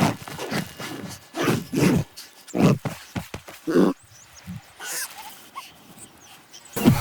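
Animal calls: several short, loud cries in the first four seconds, then quieter until another loud call near the end.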